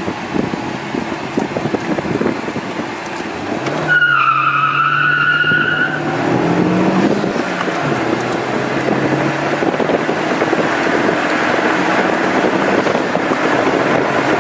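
Car accelerating hard, heard from inside the cabin. About four seconds in, a roughly two-second tyre squeal as it launches, while the engine note climbs. After that the engine keeps pulling under steady road and wind noise.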